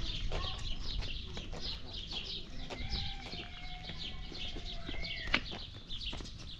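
Many small birds chirping quickly and repeatedly, with a faint drawn-out call lasting about two seconds midway and light footsteps on dirt.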